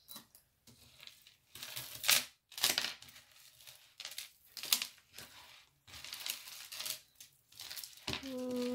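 A tangle of costume-jewelry necklaces, metal chains and beads, rustling and clinking in a run of short, irregular scrapes as it is pulled apart on a tabletop.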